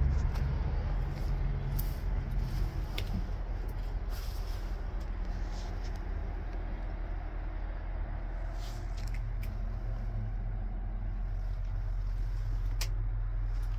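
Hino J08 7.6-litre inline-six diesel idling steadily, with a few sharp clicks.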